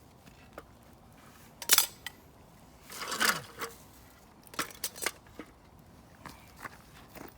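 A few sharp clinks and knocks of cooking utensils and tableware, with a short scraping rustle near the middle.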